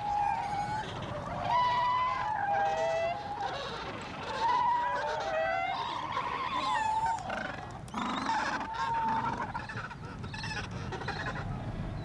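Gentoo penguin chicks begging for food, a run of overlapping high, wavering calls, each held about half a second to a second, some falling in pitch.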